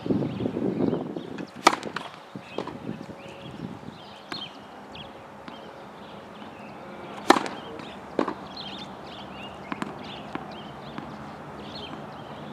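Tennis ball hit with a racket and bouncing on a hard court: a few sharp, separate strikes, the loudest about seven seconds in.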